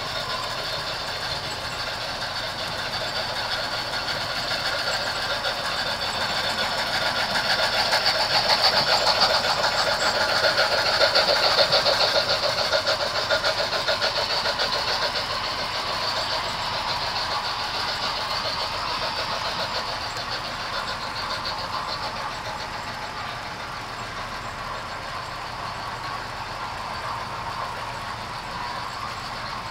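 HO scale model freight train rolling past close by, its metal wheels clicking over the rail joints in a rapid, steady stream. It grows louder to a peak about a third of the way through, then eases off slightly as the cars keep passing.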